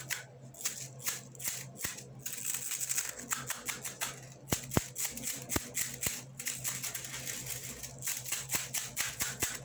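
A spring being handled, its coils giving many quick irregular clicks and rattling taps, with a few brief ringing notes about halfway through.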